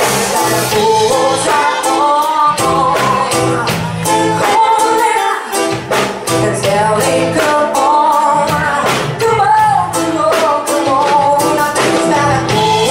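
Live reggae band with drums and bass playing a steady riddim while a woman sings over it into a microphone.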